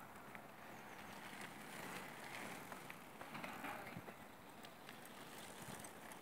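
Faint outdoor background: a steady low hiss with a few scattered soft clicks.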